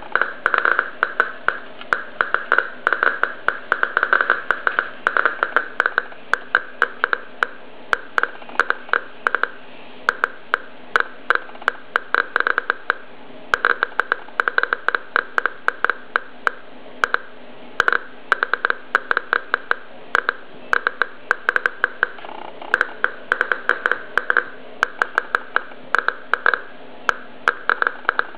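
Eberline ESP-2 radiation survey meter's speaker clicking at random, irregular intervals, several clicks a second over a steady hiss. Each click is one count from the scintillation probe held over dried mushrooms, at a low rate of about five counts a second.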